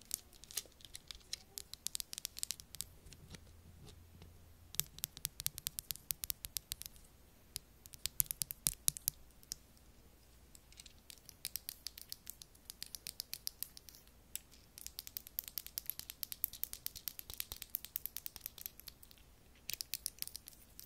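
Two clear plastic pens tapped and rubbed against each other close to the microphone: clusters of quick, light clicks and scratchy taps, with short pauses between the clusters.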